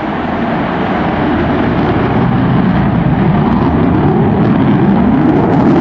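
F-14 Tomcat fighter jet's twin engines: loud rushing jet noise that grows steadily louder, with a rising tone over the last couple of seconds.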